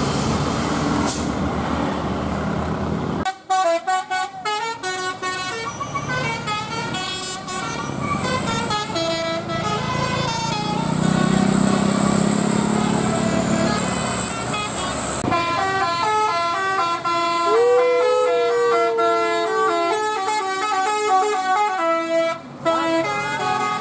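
Bus 'telolet basuri' musical horn playing a tune in quick stepped notes, several tones sounding at once. The tune starts about three seconds in, after engine and traffic noise.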